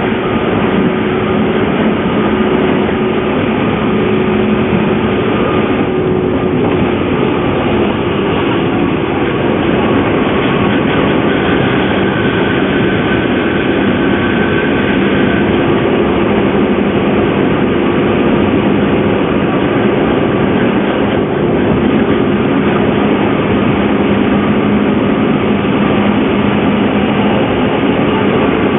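JNR 201 series electric train running, heard from inside the car: rail rumble under several steady whining tones from the traction drive. It is an abnormal screech like that of an old nose-suspended drive, which the uploader puts down to a traction motor in poor condition.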